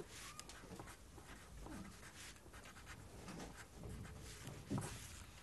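Pencil writing on squared paper: faint, irregular scratching of the lead across the sheet, with a soft knock about three-quarters of the way through.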